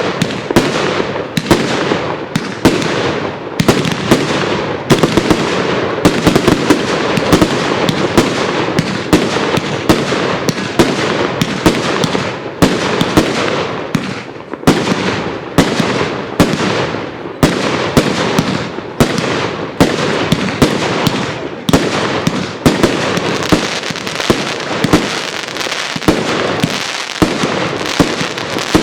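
Royal Fireworks Garden of Eden, a 240-shot consumer fireworks cake, firing: a steady stream of sharp shots and bursts, a few a second, with no let-up.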